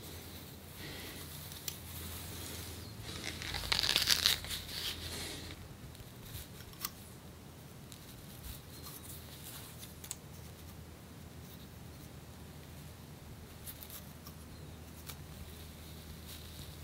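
Scratching and picking at flaky skin, lifting dry dandruff scales of seborrheic dermatitis. Small scattered crackles, with a louder stretch of scratching about four seconds in.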